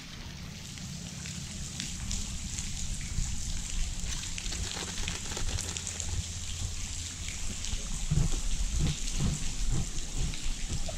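Steady rain pattering, a fine hiss full of small drop ticks, over a low rumble on the microphone that swells and becomes gustier in the last few seconds.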